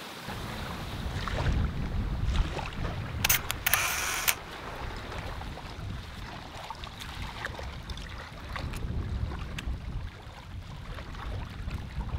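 Wind buffeting the microphone, with low handling rumble while walking barefoot over sand and rock. About three seconds in, a short bright click-and-hiss from a phone camera's shutter.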